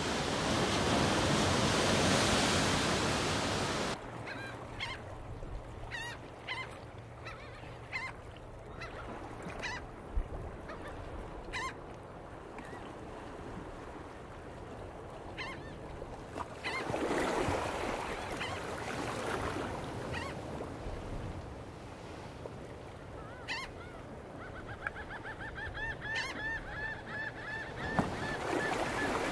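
A steady rushing noise that cuts off about four seconds in, then a bird giving a series of short honking calls about once a second over a faint background wash, with a rapid run of quick repeated notes near the end.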